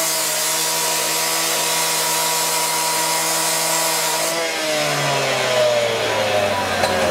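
Petrol-powered rescue cut-off saw running at full throttle, its abrasive disc grinding through a steel roller shutter. About four seconds in it is eased off and its engine speed drops.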